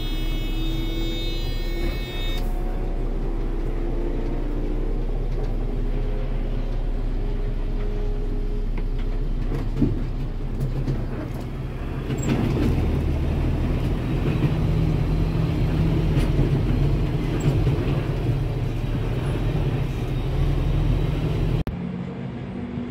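Truck trial truck's engine running and revving as it drives over a rough dirt course, heard from inside the cab, with a few knocks as it jolts over the bumps. It gets louder from about halfway in.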